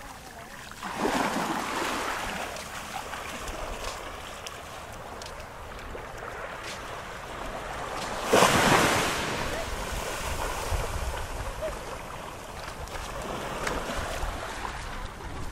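Sea surf on a beach: waves breaking and washing in, with one surge about a second in and a louder one about eight seconds in, each fading away. Wind rumbles on the microphone underneath.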